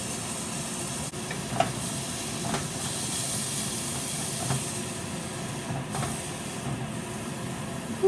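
Beef burger patties sizzling in a hot frying pan, a steady hiss with a few faint clicks.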